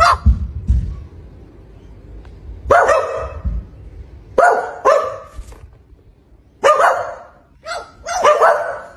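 Barking: about eight loud, short barks at irregular intervals, some in quick pairs, with a few low thumps in the first second.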